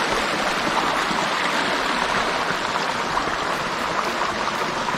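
A shallow stream running over cobbles and stones: a steady rush of water.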